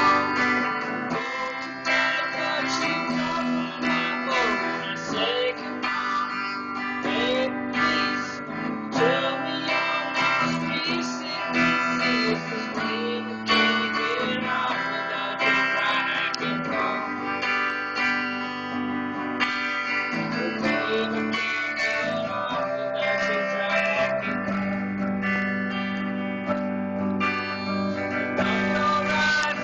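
Guitar music with strummed and plucked notes.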